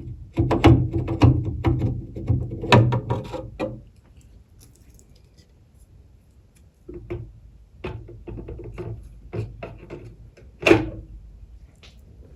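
Metal parts of a SawStop table saw being handled at the blade arbor: a busy run of clinks and knocks, some ringing, for the first few seconds, then scattered knocks with one sharp knock near the end.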